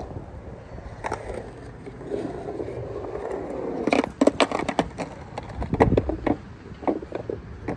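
Skateboard wheels rolling on a concrete bowl, then a quick run of sharp clacks about four seconds in and another near six seconds as the board knocks and clatters on the concrete.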